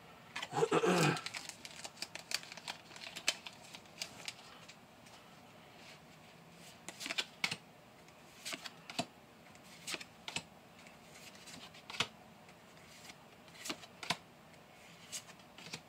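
Pokémon trading cards being handled: irregular light clicks and flicks, roughly one a second, as cards are slid off a stack and set down one by one.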